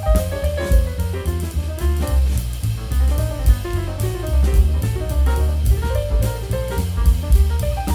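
Jazz background music: walking double bass, drum kit with cymbals, and a melody instrument playing runs of notes.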